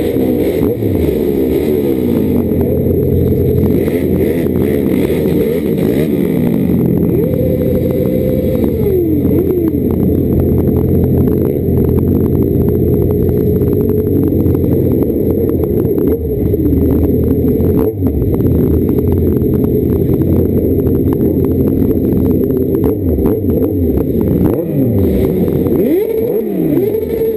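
Several motorcycle engines running at low speed close by, their notes rising and falling as they rev and throttle off in slow traffic.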